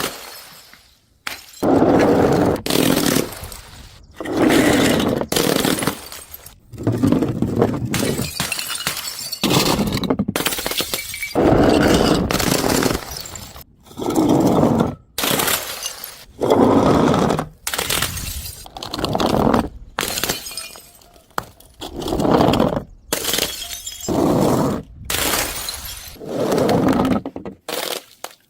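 Glass bottles smashing one after another, over a dozen breaks. Each is a sudden crash followed by about a second of shattering and tinkling fragments.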